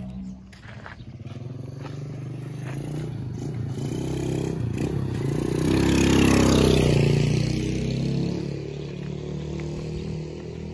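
A motorcycle passing close by: its engine sound builds, is loudest about six seconds in, then fades away.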